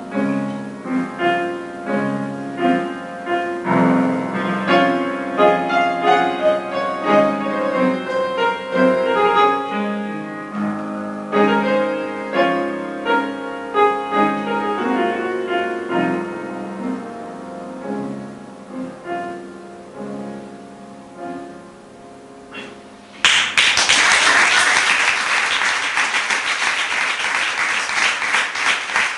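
Solo piano plays the closing bars of a classical song accompaniment, the notes slowing and growing quieter. About three-quarters of the way through, audience applause breaks out suddenly and continues.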